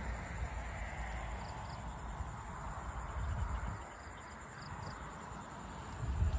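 Rural outdoor ambience: a low rumble of wind on the microphone that swells about three seconds in and again near the end, under a steady high drone of insects.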